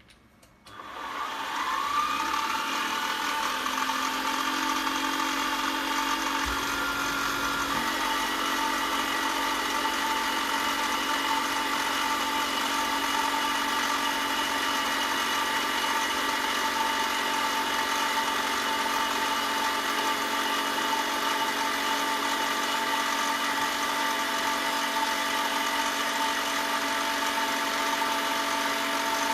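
An electric motor in a power tool or machine spins up about a second in, rising in pitch, then runs steadily at a constant speed, its tone shifting slightly about eight seconds in.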